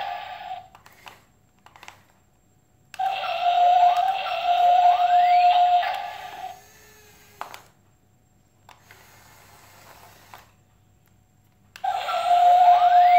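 A looping electronic sound: a steady high tone with quick rising swoops over it, lasting about three and a half seconds. It stops, leaving a quieter gap with a faint click, and starts again near the end.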